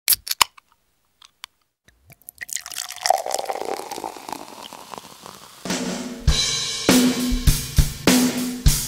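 Intro music: after a few sharp clicks and a swelling noise, a drum kit comes in about six seconds in, with kick drum hits under snare and cymbal wash.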